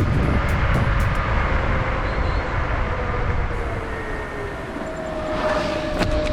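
Electric scooter riding at speed: a steady rumble of wind and tyres on the microphone, with the thin whine of a hub motor slowly falling in pitch as the scooter eases off. A second steady motor whine joins near the end.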